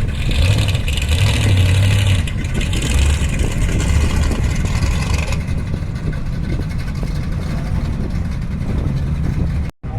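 Car driving, with steady engine and road noise. A high hiss drops away about halfway through, and the sound cuts out for a moment near the end.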